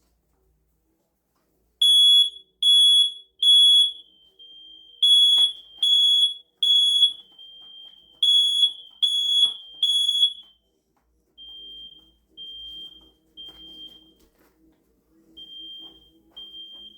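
Hardwired smoke alarm sounding under test: loud high-pitched beeps in the three-beep evacuation pattern, three rounds of three. After it stops, fainter beeps from the other interconnected alarms in the house carry on in the same pattern.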